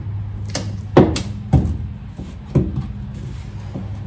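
Plastic push-pin fender-flare clips being pried out with a trim tool: about five sharp plastic clicks and snaps, the loudest about a second in, over a steady low hum. These clips are brittle from dirt and mud and shatter as they come out.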